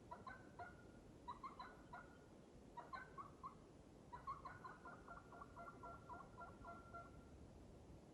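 Faint, distant turkey calling: several short runs of quick notes, then a longer run of notes lasting about three seconds from around the middle.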